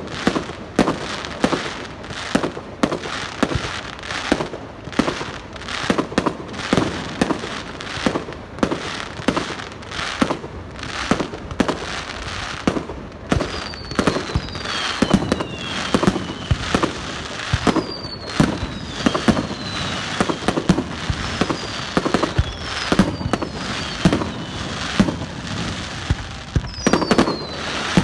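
Fireworks display: aerial shells bursting in rapid, continuous bangs several per second. From about halfway in, high whistles falling in pitch are heard again and again among the bursts.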